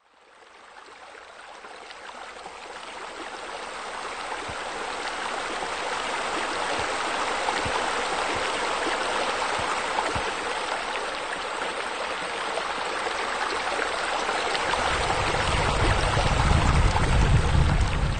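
Steady running water, like a stream or trickling water feature, fading in from silence and growing louder. A low rumble joins in for the last few seconds.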